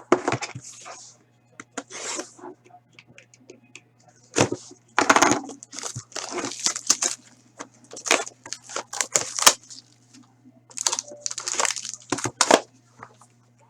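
Trading card packaging being torn open and crumpled, with wrappers and cards rustling in irregular bursts over a steady low electrical hum.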